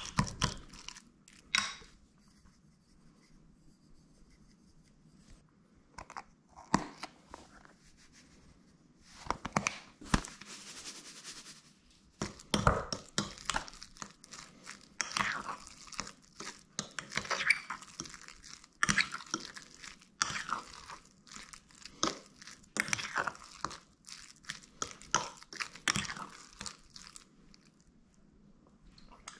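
A fork mashing ripe avocado in a glass bowl: wet squishing and crunching in irregular bouts, with sharp taps where the fork meets the glass. About ten seconds in, a short hiss of salt poured from a canister onto the avocado.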